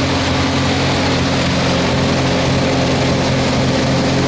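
1954 Hobart 10 kW military generator's Hercules IXB engine idling steadily while it warms up, running with no load on it.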